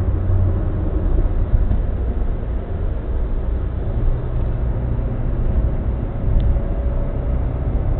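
Steady low rumble of engine and tyre noise heard inside a car's cabin at motorway speed, with a low hum joining about halfway through.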